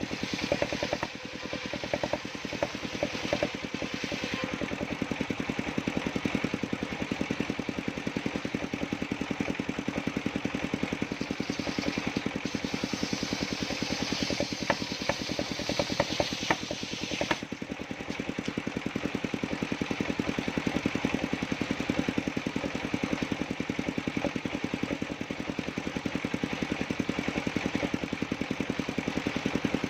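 Engine of a sawmill circular-saw rig running steadily with a fast, even beat. For a few seconds in the middle a brighter hiss rises over it, then stops abruptly.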